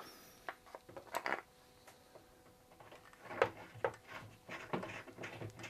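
Light scattered clicks and knocks from a wooden spoked tea cart wheel being turned and rocked by hand on its freshly waxed axle, testing how much play is left.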